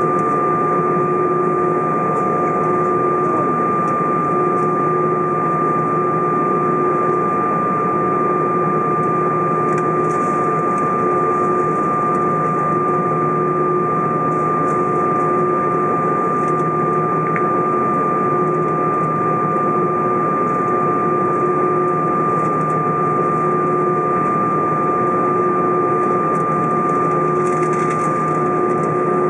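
Airbus A320 cabin noise from the engines at taxi power: a steady hum carrying a constant whine, with a lower tone that comes and goes every couple of seconds.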